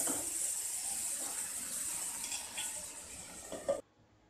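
Chopped onions and tomatoes sizzling in a hot non-stick frying pan while a spatula stirs and scrapes them, with a few light ticks. Near the end there is a knock as the glass lid goes on, and the sound cuts off suddenly.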